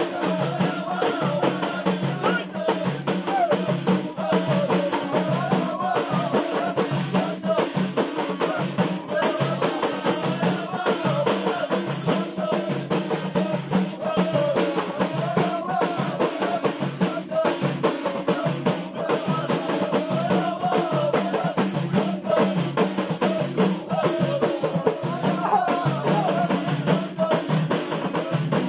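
An Ahidous troupe beating bendir frame drums together in a steady rhythm while the men sing a wavering unison chant.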